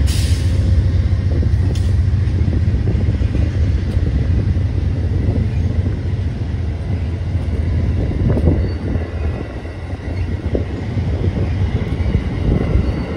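Amtrak passenger train rolling past close by, first the tail of a diesel locomotive, then its coaches: a steady low rumble with irregular clacks as the wheels cross the rail joints.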